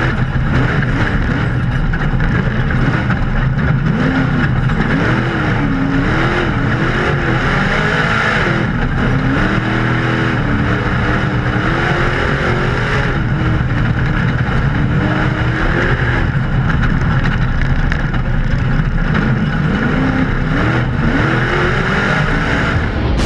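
Ultra4 race car's engine heard from inside the cockpit, its pitch climbing and dropping again and again as the driver works the throttle through the turns, over a loud steady rush of noise from the ride over dirt. Near the end it winds up in one long rising rev.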